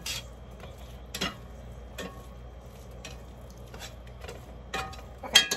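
Metal utensil stirring food in a skillet, scraping and tapping against the pan in scattered clinks, with the loudest clanks near the end. A steady low hum runs underneath.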